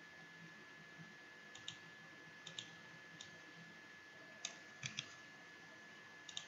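Faint, scattered clicks of a computer mouse and keyboard, several coming in quick pairs, over a low hiss with a thin steady high-pitched tone.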